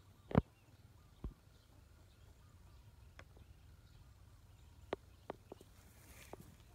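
A few scattered sharp taps and knocks over a quiet outdoor background. The loudest is a bit under half a second in, and several smaller ones follow in the second half.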